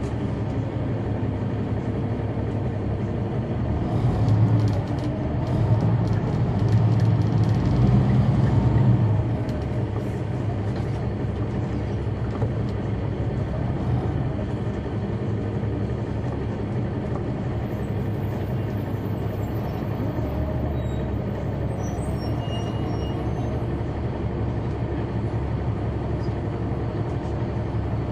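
The Caterpillar C9 ACERT diesel engine of a Neoplan AN459 articulated bus running under way, heard from the back of the passenger cabin. It grows louder for a few seconds, about four seconds in, then eases back to a steady drone.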